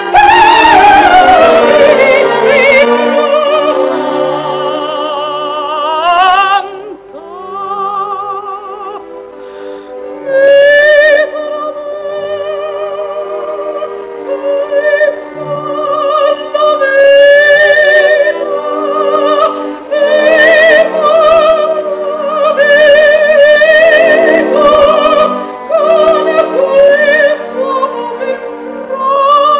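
Operatic soprano singing an aria with orchestra: long held notes with wide vibrato, the music easing off to a quieter passage several seconds in before the voice swells again.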